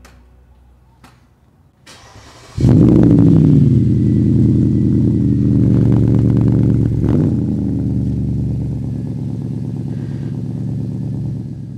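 2012 Audi A8's 4.2-litre V8 engine starting: it catches with a sharp rev flare about two and a half seconds in, then settles into a steady idle heard at the exhaust.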